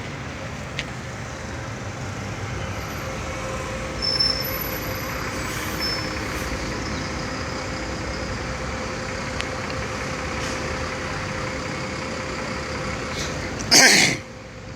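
Steady road traffic noise from heavy vehicles, with one brief, loud burst of hissing noise about a second before the end.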